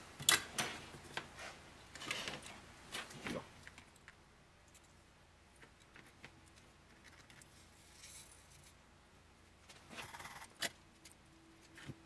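Faint clicks and rustles of hands handling a clamped pack of 18650 cells and plastic quick-release clamps during soldering. A cluster of small clicks comes in the first few seconds and another about ten seconds in, with a quiet stretch between.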